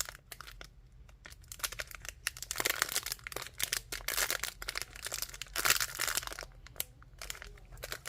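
Plastic packaging crinkling and rustling in the hands, in irregular bursts with sharp crackles and a few louder rustles, as a squishy package is handled and opened.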